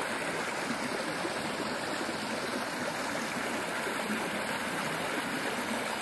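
A stream pouring over a dam of sticks and branches, rushing and splashing in a steady, unbroken stream of noise.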